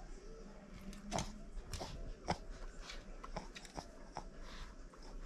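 Boston terrier biting and mouthing a stuffed plush toy, giving a scatter of short, irregular clicks and soft rustles.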